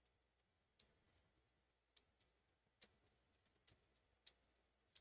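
Near silence with faint, short clicks about once a second at uneven spacing.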